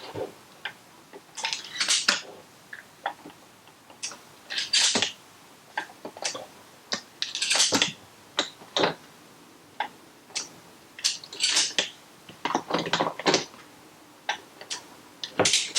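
12-gauge shotgun shells being loaded into a Remington 870 pump shotgun: a series of sharp clicks and short snaps, one every couple of seconds, as each shell is pushed home.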